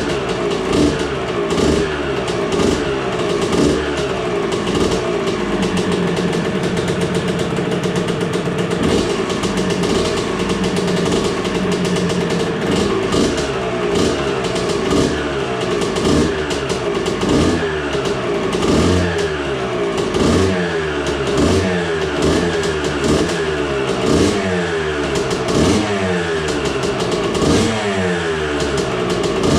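1986 Honda CR 125's single-cylinder two-stroke engine running on its first start after restoration, warming up. It holds a fast idle for a few seconds, then is blipped up and down about once a second, crackling loudly.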